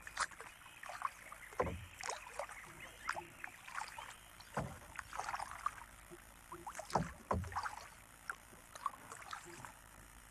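Kayak paddling: a double-bladed paddle dipping into calm water, with trickling drips and small splashes and a few louder strokes about three seconds apart.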